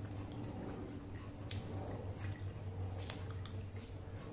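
Wet, sticky eating sounds of a meal eaten by hand: fingers pulling apart somay and fried tofu in a glass bowl, with scattered short clicks over a low steady hum.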